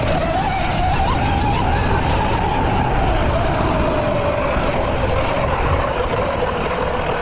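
Sur-Ron electric dirt bike riding fast on a dirt trail: the motor's whine rises with speed in the first couple of seconds, then slowly falls, over heavy wind rumble on the microphone.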